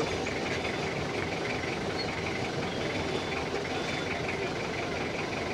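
Steady vehicle engine and traffic noise heard from inside a vehicle's cabin as it sits or creeps in slow traffic.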